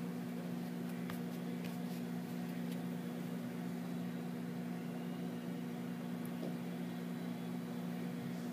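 A steady low hum, like an appliance or fan running, with a few faint soft clicks in the first three seconds.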